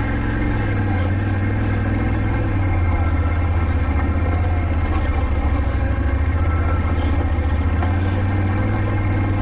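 Can-Am ATV's engine running steadily at low speed while riding a rocky trail, getting a little louder about three seconds in.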